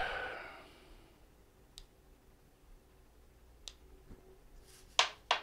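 Mostly quiet, with two faint clicks, then two sharp, louder clicks near the end.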